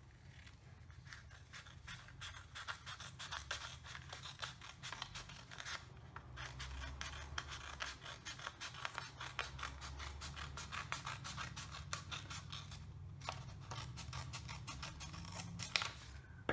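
Scissors cutting along the crease of a folded sheet of paper: a quick, steady run of many short snips, with two brief pauses.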